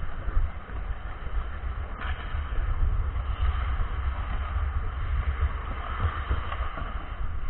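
Steady low rumble and hiss from a camera worn by a skating ice hockey player: wind and body-movement noise on the microphone, with skate blades scraping the ice.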